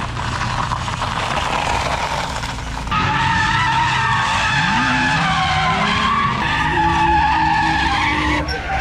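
A car drifting: the engine revs up and down under load while the tyres squeal in long sustained tones.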